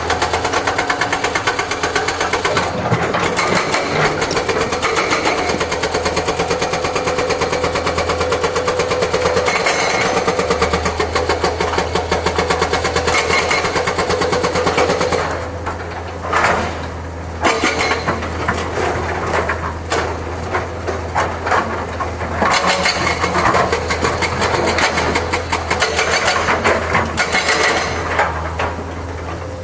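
Excavator's diesel engine running steadily, with a dense mechanical clatter from the working machine. From about halfway it eases slightly, and a run of sharp, irregular knocks and clanks follows.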